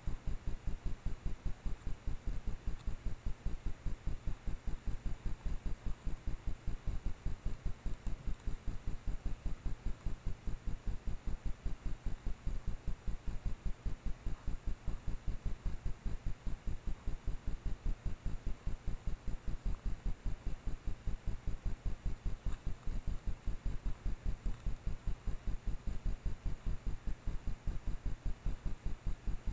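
A trail camera's own electronic noise: a steady low throbbing pulse, about five a second, that does not change.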